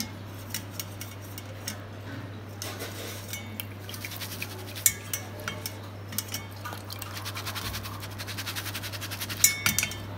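A steel mesh strainer clinking and scraping against a stainless-steel bowl as the flattened rice in it is dipped and worked about in the water. The clinks are scattered, with a quick run of light rattling ticks and a few louder knocks near the end, over a steady low hum.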